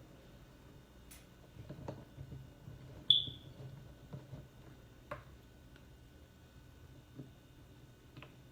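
Scattered light taps and clinks of a utensil against a jar as crumbled shea butter is added, with one sharp, briefly ringing clink about three seconds in.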